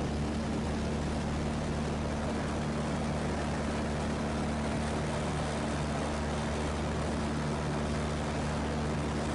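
Just Aircraft SuperSTOL XL's engine and propeller running steadily at takeoff power, heard from inside the cockpit as the plane rolls on the grass strip and lifts off, a constant drone with no change in pitch.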